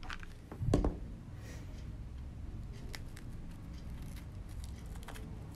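Light handling sounds as a glitter-paper pillow box and lace are pressed together by hand: faint scattered clicks and crinkles. One sharp knock, the loudest sound, comes just under a second in, over a low steady hum.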